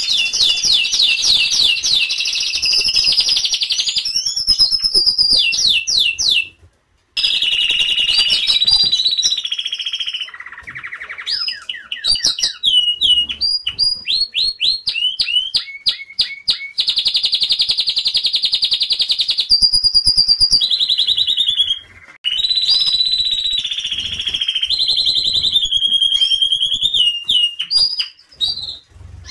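Domestic canary singing: fast trills and rolls alternating with rising and falling whistled sweeps, in phrases broken by short pauses. The song cuts out briefly about seven seconds in.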